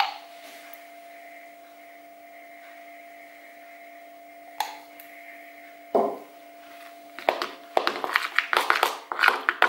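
A spoon knocks once on a plastic bowl. Then, from about seven seconds in, it scrapes and stirs through thick whipped cream in quick repeated strokes, the loudest sound here. A steady low electrical hum runs underneath.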